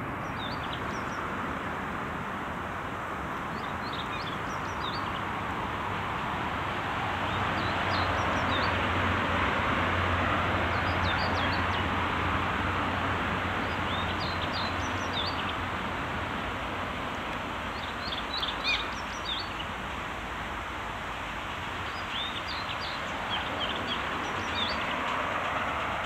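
Outdoor background of a steady rushing noise with a low hum that swells about a third of the way in and again near the end, like distant traffic passing. Small birds chirp in short, high twitters throughout.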